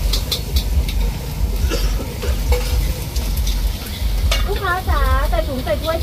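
Metal utensil stirring and scraping a yam salad in a stainless steel mixing bowl, with scattered sharp clinks, over a steady low rumble. Near the end a rapid run of wavering squeaks joins in.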